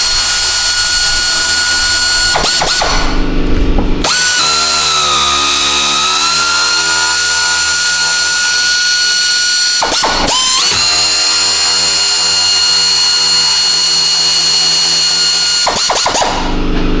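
Cordless power ratchet running bolts out of a truck's front-end support, its motor whining steadily at a fixed pitch. It stops and starts again several times, and the pitch sags briefly about four seconds in as a bolt loads it.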